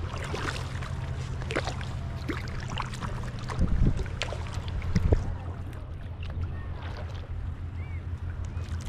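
Kayak paddle strokes: the blades dip and splash in sea water, with water dripping off them, over a steady low rumble. Two louder splashes come around the middle.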